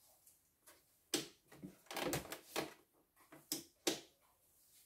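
Several sharp clicks and knocks from hands handling a computerised embroidery machine that has not powered on, with a cluster of them in the middle.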